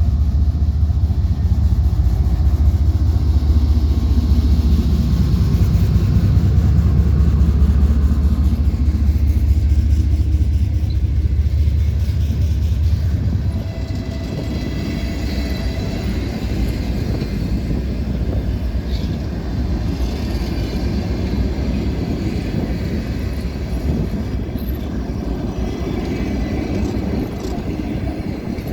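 TEP33A diesel locomotive pulling a passenger train away from a station: a loud, steady low engine drone for about the first half, which falls off sharply about halfway through as the locomotive passes. The passenger coaches then roll by with a quieter, even rumble of wheels on rails.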